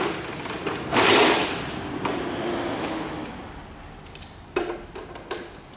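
Metal parts of a compact electric mobility scooter being fitted together by hand at the tiller base. There is a click at the start, a louder scrape about a second in, then a few light clicks and knocks near the end.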